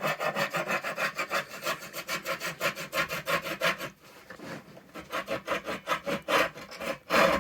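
Thin-kerf handsaw cutting into wood in quick back-and-forth strokes, about five a second, going softer for a second or so midway before picking up again. The saw is cutting a groove for a notch, down to the bottom of the tongue.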